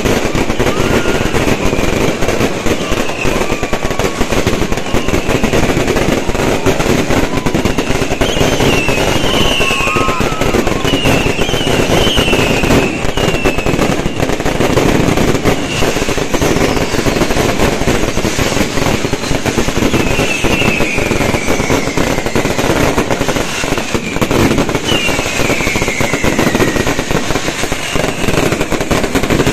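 Fireworks display: a dense, unbroken rattle of bangs and crackling, with many short whistles falling in pitch from whistling shells.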